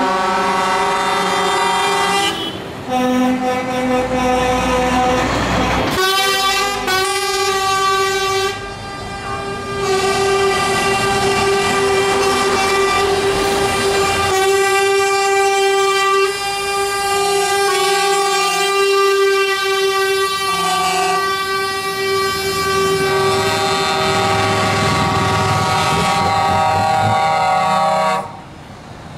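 Air horns on passing trucks sounding long, steady multi-tone chords, one sustained blast after another with short breaks between them. A deep diesel engine rumble shows under the horns a few seconds in.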